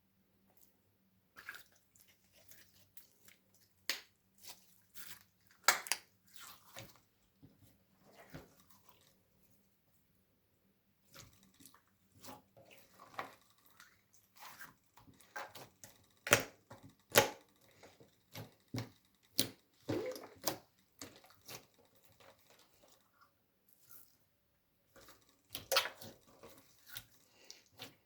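Slime being squished and worked, giving a run of irregular wet, sticky pops and squelches, with a pause of about a second and a half near the middle.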